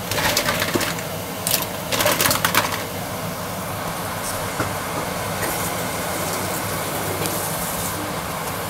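Fresh mussels cooking in a steaming stainless steel pot. Their shells clatter and knock against each other and the pot in the first three seconds, then give way to a steady hiss of the hot pot over a low hum.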